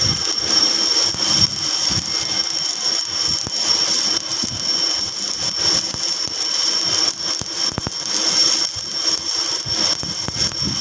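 Stick-welding arc burning steadily, a dense crackling sizzle from the electrode as it lays an overhead fillet weld joining a steel shaft to a plate. A constant high-pitched whine runs underneath.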